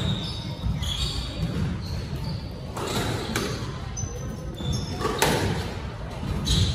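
Squash rally: the ball cracks sharply off racquets and walls four times in the second half. Between the hits come short, high-pitched squeaks of shoes on the wooden court floor, all echoing in a large hall.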